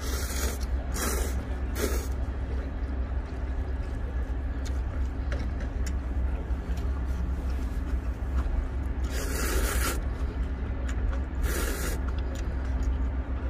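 Instant ramen noodles being slurped off chopsticks: five short, hissing slurps, three close together at the start and two more about nine and eleven and a half seconds in, over a steady low rumble.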